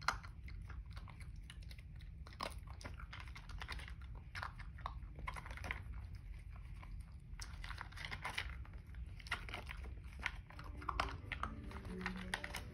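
A two-month-old husky puppy chewing and crunching its food from a plastic tray, in irregular clusters of crunches with short pauses between mouthfuls.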